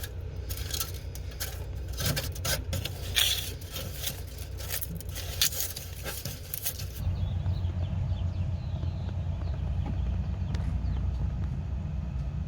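Rustling, clicking and scraping of hands handling a car's wiring harness for about seven seconds, then a steady low hum.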